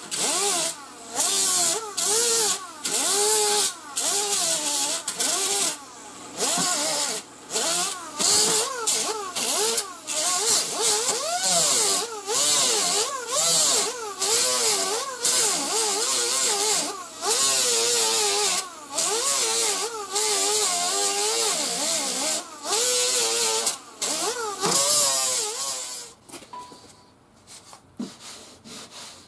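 Small air-powered grinder with an abrasive disc grinding down welds on a steel car body panel, with a high hiss and a motor whine that wavers up and down as the disc bears on the metal. It cuts out briefly many times as the trigger is released, and stops a few seconds before the end.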